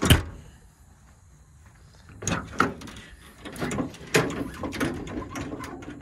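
Metal side-compartment door of a service truck body shut with a bang at the start, followed from about two seconds in by an irregular run of clicks, knocks and rattles of latches and doors being handled.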